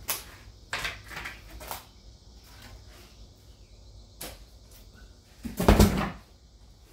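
Knocks and scrapes from handling the foam-wrapped packaging of a steel tool chest: a few short ones in the first two seconds, another a little after four seconds, then a louder, deeper thump about five and a half seconds in.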